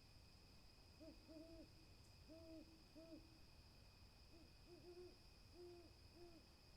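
Owl hooting: two series of short, low hoots, about four or five in each series, with the second series starting about four and a half seconds in.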